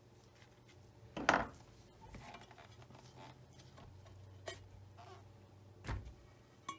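Parts of a Singer Featherweight 221 sewing machine being handled and set down: a loud metal clunk about a second in, then three lighter knocks and some scraping as pieces are moved.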